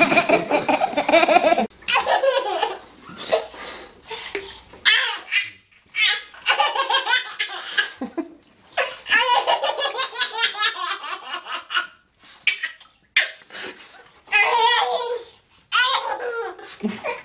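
Babies laughing hard. One baby's laughter cuts off about two seconds in, then another baby laughs in repeated fits of belly laughs and giggles with short pauses between.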